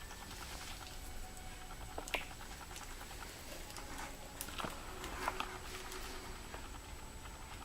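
Faint, scattered light taps and clicks, a few a little sharper than the rest, over a low steady hiss with a thin high whine.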